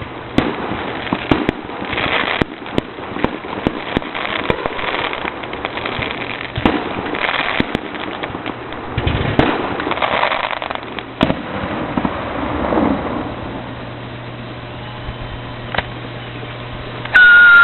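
Fireworks display: aerial shells bursting with many sharp bangs and crackling. Near the end a loud, shrill steady whistle sounds for about a second.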